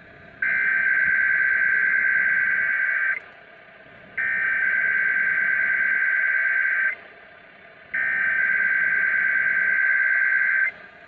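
Three long electronic alert tones from a weather radio, each a steady high beep of nearly three seconds with about a second between them, over constant radio static hiss.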